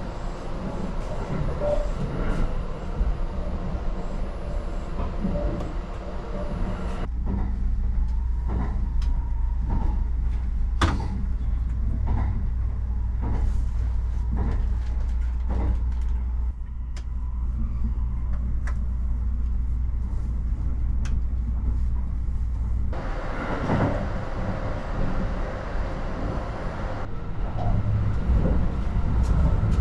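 Kintetsu Hinotori limited express electric train running, heard from inside the car: a steady low rumble of the running gear with occasional short clicks and knocks. About seven seconds in the sound abruptly turns duller, with a stronger deep hum, and it switches back about twenty-three seconds in.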